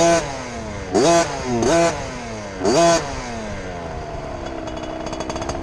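KTM 50 mini motocross bike's small two-stroke single-cylinder engine, blipped four times in quick succession, the pitch shooting up and sagging back each time. It then settles to a steadier, lower running note with a fast light rattle near the end.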